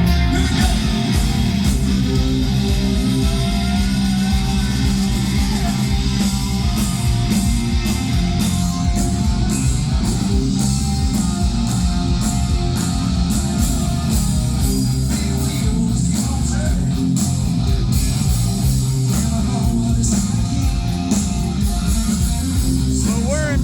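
Live rock band playing loud and instrumental: electric guitar over bass and a steady drumbeat.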